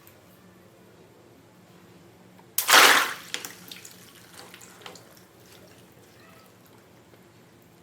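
A water balloon popping about two and a half seconds in: a sudden loud burst and splash of water that trails off into a few scattered drips and splats.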